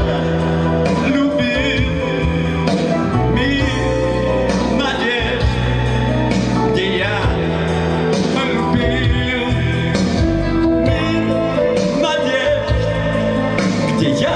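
Live pop-rock song with electric guitar and keyboards over a steady bass, a wavering melody line on top.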